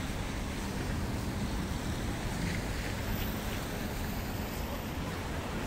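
Steady outdoor street ambience: wind rumbling on the microphone over a distant hum of city traffic.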